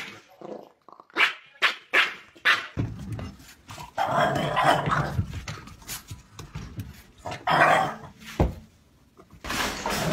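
Dogs barking in short bursts, among them a bulldog puppy barking.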